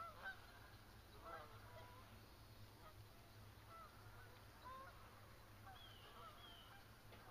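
Faint, distant bird calls: short, repeated calls scattered over near silence.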